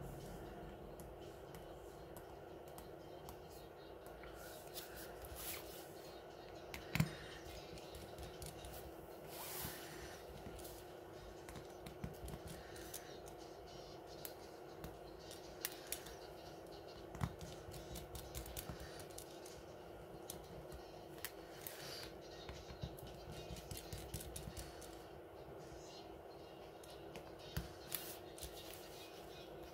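Scattered small clicks, taps and scrapes of a precision screwdriver and fingers handling a Samsung Galaxy A50's plastic and metal parts during disassembly, with a sharper click about seven seconds in, over a faint steady hum.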